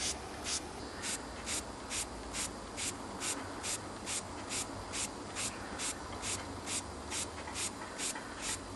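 Doll toy horizontal steam engine running on compressed air, ticking over slowly: short even puffs of hissing exhaust air, about two and a half a second.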